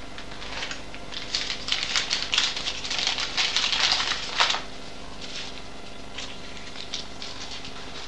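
A run of quick small clicks and rustles for about three seconds, as of hands handling something small, strongest in the middle and stopping with a last sharper click; fainter scattered clicks follow, over the steady hum of an old film soundtrack.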